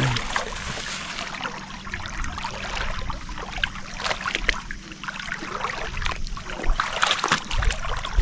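Footsteps wading through shallow seawater: irregular small splashes and sloshing, a few louder splashes about four and seven seconds in.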